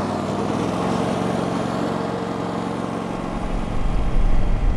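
A John Deere 318 garden tractor's engine running steadily. About three seconds in, it gives way to the deep, louder rumble of a car driving, heard from inside the cabin.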